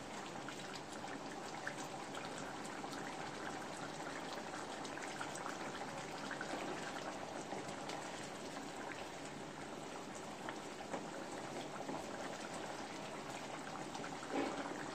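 Thick mutton curry gravy bubbling and popping in a pan as it simmers down to reduce, stirred through with a wooden spatula; a steady run of small pops and crackles.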